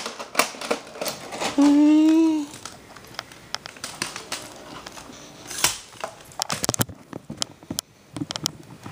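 Handling noise: a string of sharp plastic clicks and knocks, busiest in the last few seconds, as a VHS cassette and its case are handled. About two seconds in there is a short hummed vocal sound.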